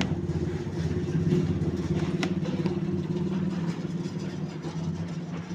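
Small 12-volt DC motor pump running, a steady hum with a fast pulsing flutter.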